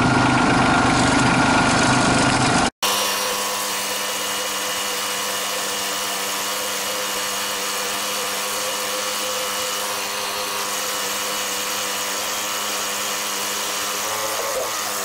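Kubota B2650 compact tractor's three-cylinder diesel engine running a couple of minutes after a cold start. About three seconds in the sound cuts out for an instant, then goes on quieter and steady.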